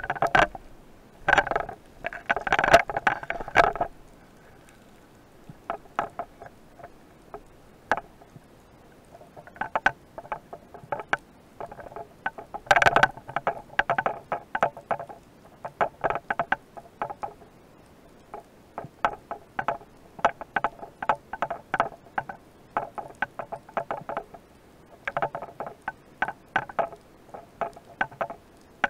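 Irregular clicks and rattling knocks heard underwater, in clusters a second or two long with short gaps between, loudest in the first few seconds and again about halfway through.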